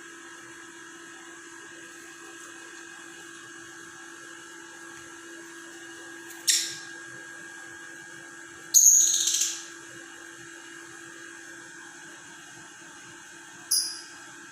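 A steady electrical whine and hum, with three short, loud, shrill calls from a lovebird about six and a half, nine and thirteen and a half seconds in; the middle call is the longest.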